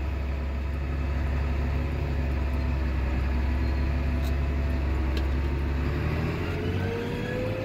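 Tractor engine running steadily under load while pulling a heavily loaded grain cart, heard from inside the cab. About six seconds in the engine note shifts and a thin whine rises slowly in pitch.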